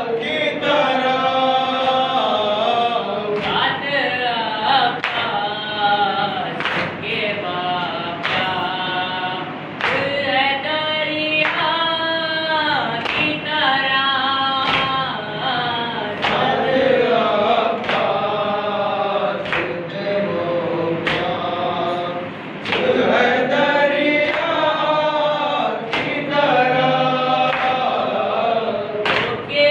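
A nauha, a Shia mourning lament, chanted by a young man with other male voices joining in, in a slow, wavering melody broken into phrases. Repeated sharp slaps of hands striking chests (matam) sound under the chant.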